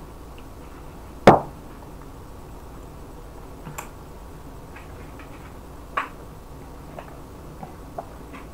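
One sharp knock about a second in, then a few faint clicks and ticks, as a mug is handled, lifted and drunk from. A low steady hum sits underneath.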